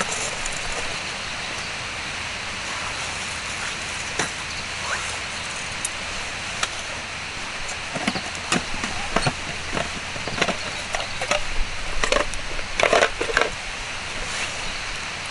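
Wood fire crackling, sharp snaps and cracks over a steady hiss, the snaps coming thicker in the second half.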